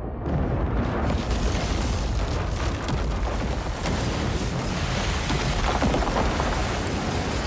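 Movie sound effects of a massive earthquake: a continuous deep rumble and roar of a city's buildings collapsing, starting just after the beginning, with a few sharper crashes in the middle.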